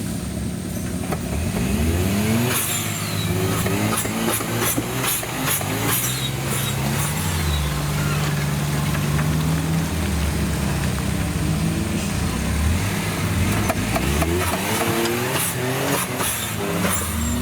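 Engine of a Suzuki Jimny-based off-road trial machine revving up and down repeatedly, with sharp clicks and knocks scattered through it.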